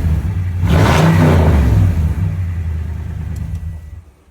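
Car engine revved once about a second in, then falling back and dying away near the end as it is switched off.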